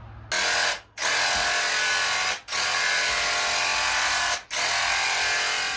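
Handheld electric paint sprayer buzzing as it sprays paint, in four trigger pulls: a brief first one, then three longer runs of about one to two seconds, each cutting off sharply for a moment before the next.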